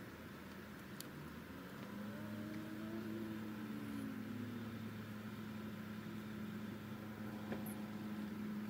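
A low motor hum that swells about two seconds in, glides briefly up and back down in pitch, then holds steady. There is a faint click about a second in and another near the end.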